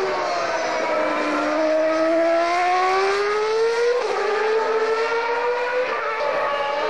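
Williams-Renault Formula 1 car's V10 engine at full throttle out of a corner. The high engine note climbs steadily and drops at upshifts about four and six seconds in.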